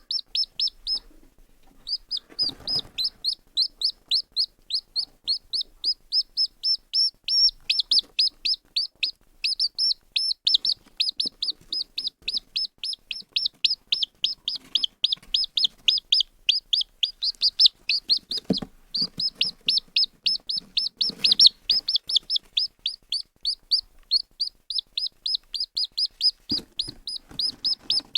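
A chick peeping continuously: a fast run of short, high, downward-sliding peeps, about four a second, with a brief pause near the start. A few faint low knocks sound in the second half.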